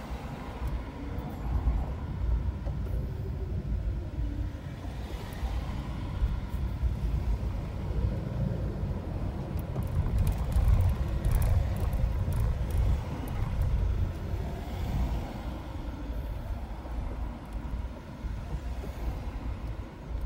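Road and engine rumble heard inside a car moving in slow traffic: a steady low rumble that swells in the middle and eases off near the end as the car comes to a stop.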